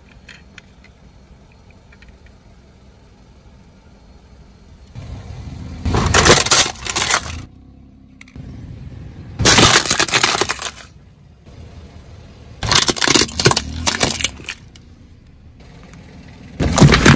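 Car tyre rolling over and crushing plastic toys and cups: four loud bursts of cracking, breaking plastic, each about a second and a half long, with a low rumble under them. Before them come a few faint clicks of a toy car being handled.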